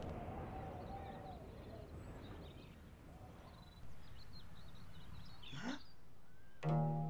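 Soft outdoor ambience of a cartoon soundtrack with faint bird chirps, a quick rising sound effect a little before the end, and then bowed and plucked cello music coming in loudly near the end.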